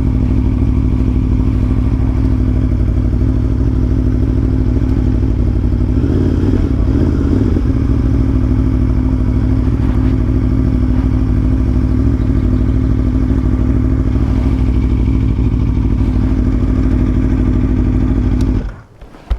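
Aprilia Tuono V4 1100 Factory's V4 engine running steadily under way, with a brief wavering in pitch about six seconds in. The sound stops abruptly near the end.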